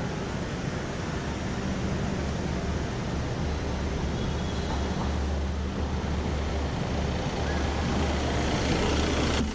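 A car driving, with a steady rumble of engine and road noise that builds slightly and then cuts off suddenly near the end.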